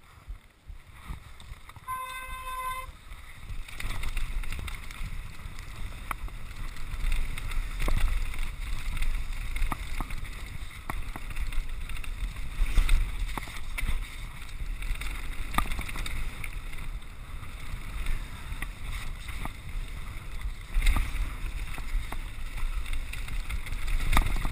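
Mountain bike descending a rocky dirt trail: tyres rumbling over stones and the bike rattling, with scattered sharp knocks from rocks and wind buffeting the microphone, getting louder about four seconds in as speed builds. A short steady beep sounds about two seconds in.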